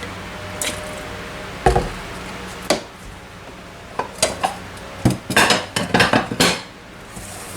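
Kitchen utensils and a cooking pot clinking: scattered knocks and clinks, with a heavier thump near two seconds in and a quick run of clinks just past the middle.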